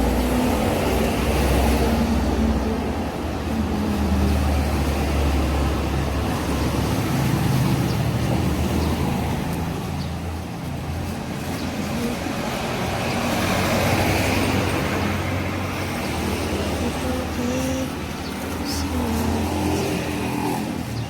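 Road vehicle running with a steady low rumble and road noise.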